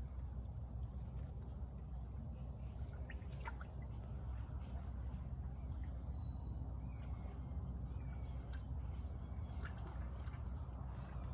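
Outdoor ambience at a creek: a steady low rumble with a constant thin high hiss, and a few faint short chirps and clicks scattered through it.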